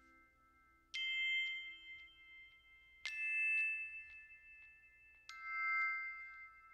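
Background music: three bell-like mallet notes struck about two seconds apart, each ringing on after it is struck.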